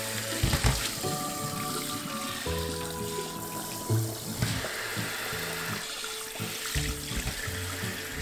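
Kitchen tap running into a stainless steel sink while hot cooking water and boiled daikon rounds are poured from a pot into a mesh strainer, with a few short knocks as the pot and rounds are handled.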